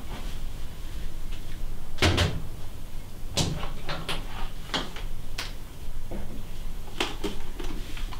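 A series of separate sharp knocks and clatters of household things being handled in a kitchen, about six over several seconds, over a low steady hum.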